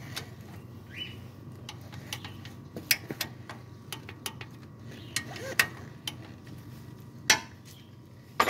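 Socket ratchet on a long extension clicking irregularly as bolts on the balancer shaft housing of a Toyota 2AZ-FE engine are run in and tightened, with a few sharper metal clinks, the loudest about seven seconds in.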